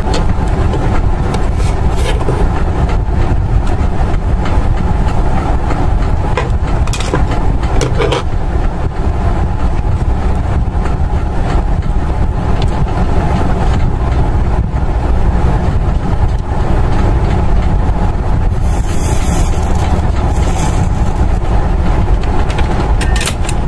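Steady low background rumble, with a few faint clicks and a short hiss about two-thirds of the way through.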